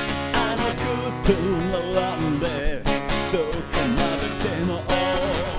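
Music from an instrumental passage of a rock song: a guitar plays a melody of bending, wavering notes over strummed guitar chords.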